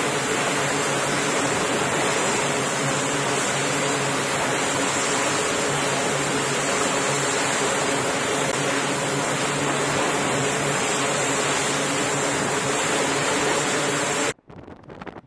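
C-2A Greyhound's twin Allison T56 turboprop engines running with the propellers turning: a loud, steady drone with a low propeller hum and a high turbine whine. It cuts off suddenly near the end.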